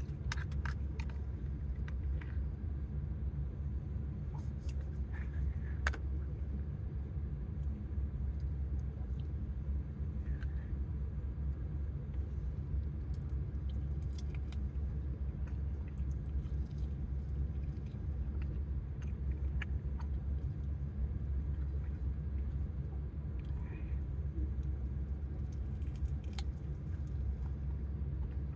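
A steady low rumble throughout, with scattered short clicks and taps over it.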